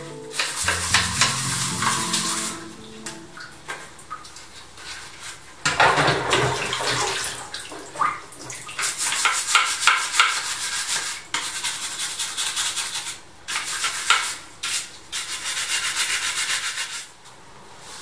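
Scrubbing with a brush in repeated bursts of one to two seconds, a scratchy hiss with short pauses between strokes.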